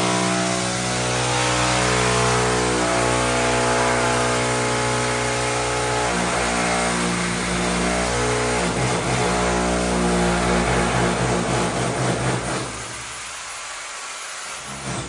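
A motor running steadily with a deep, even hum, its pitch stepping up or down a few times. Near the end it drops away to a much quieter hiss.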